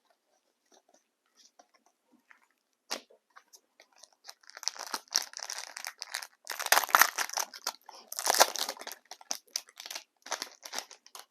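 A trading-card pack wrapper being torn open and crinkled by hand: a few faint clicks, then a dense run of crackling and tearing from about four seconds in, loudest twice near the middle.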